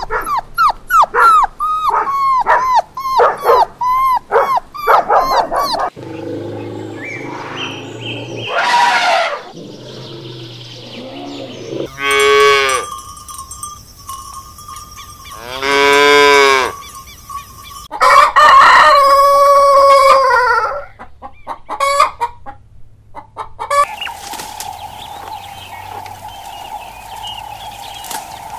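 A series of animal calls one after another: first a quick run of short, high whimpers from a puppy, then several separate long, loud calls, among them a cow mooing, and a steady high drone in the last few seconds.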